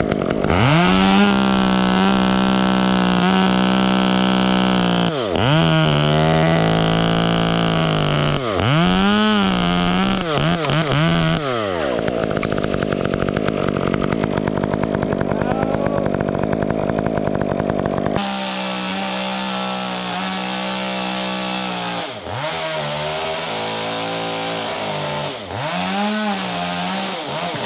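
Gas chainsaw running at high throttle while cutting oak wood, its engine pitch dipping and recovering several times as the chain loads up in the cut.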